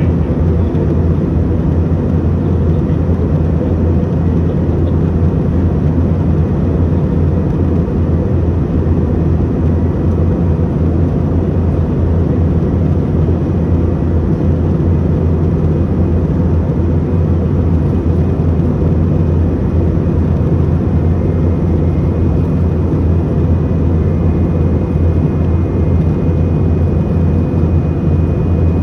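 Airliner cabin noise in flight: a steady, loud, low drone of the engines and airflow with no change in pitch, with a faint, thin, high steady tone above it.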